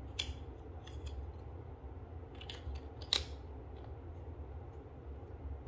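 Plastic clicks and snaps as AA batteries are pressed into a soap dispenser's battery compartment and the compartment cover is pressed into place. A few sharp clicks, the loudest about three seconds in, over a low steady hum.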